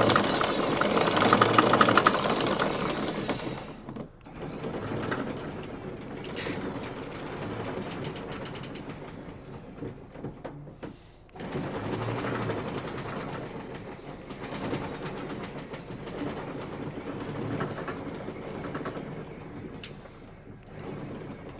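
Electric anchor windlass on a Leopard 45 catamaran running, anchor chain rattling out over the gypsy in a rapid, sewing-machine-like clatter. It runs in stretches, stopping briefly twice and starting up loud again about eleven seconds in.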